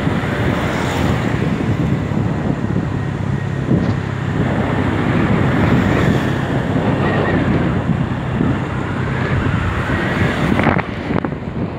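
Wind rushing over the microphone of a moving motor scooter, with the scooter's engine running steadily underneath.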